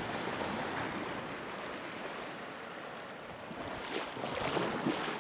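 Surf washing up a rocky shoreline, a steady rushing wash that grows louder about four seconds in, with a few short knocks.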